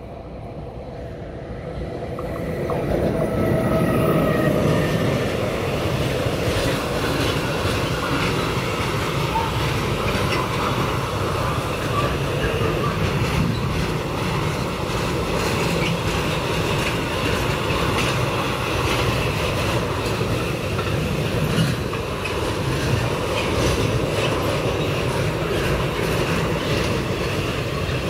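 Container freight train approaching and passing at speed. It grows louder over the first few seconds, with a whine as the locomotive nears, then settles into a steady rumble of wagons and wheels with a continuous clatter over the rail joints.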